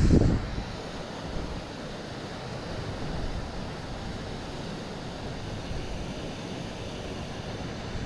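Wind rushing over the microphone, a steady noise with a louder low gust right at the start.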